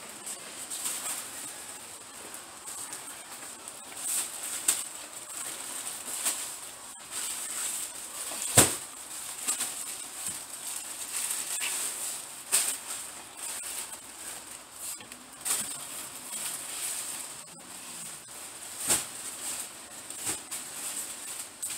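Rustling and handling noise of bags and boxes being carried and moved, with scattered knocks as things are set down or bumped, the sharpest about eight and a half seconds in.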